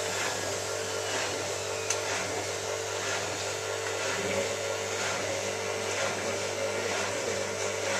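Hotpoint 9534A washing machine running steadily on a Cotton 85 descaling wash: a constant motor hum and whir, with no clear change.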